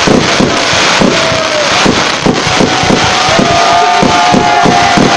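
Fireworks display barrage: a rapid run of bangs and crackles, several a second, with sustained whistling tones drifting in pitch over them.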